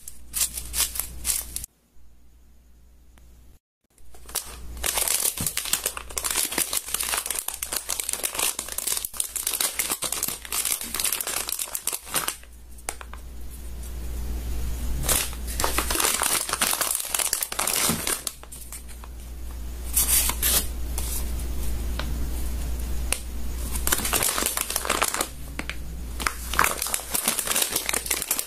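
Slime being squeezed, stretched and poked by hand, with dense crackling and popping. The sound drops away briefly about two seconds in, then runs on unbroken.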